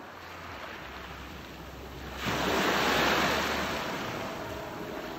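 Sea surf washing onto the shore: a steady hiss of water that swells suddenly about two seconds in, as a wave breaks and rushes up, then slowly ebbs.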